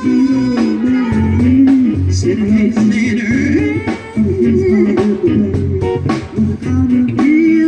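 Blues-style band music in an instrumental break: a guitar lead with bending notes over bass and a steady beat.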